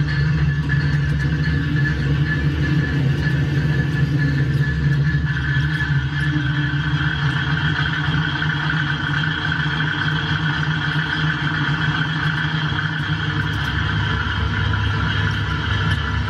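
An N gauge KiHa 30 series model diesel railcar running slowly along the track: a steady mechanical hum with a higher whine that grows stronger about five seconds in, and faint scattered ticks.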